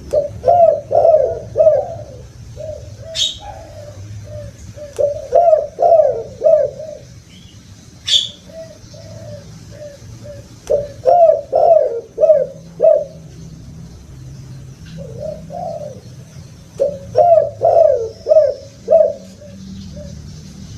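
Spotted dove cooing: phrases of four to six rapid, throaty coos, repeated every few seconds, with softer coos in between. Two sharp clicks come about three and eight seconds in.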